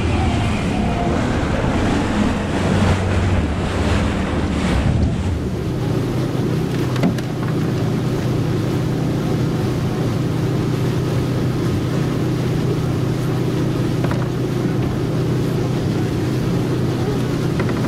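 Motorboat engine running steadily under way, a continuous low hum, with water rushing along the hull and wind on the microphone. The rushing is louder for the first five seconds or so, after which the engine hum is steadier and plainer.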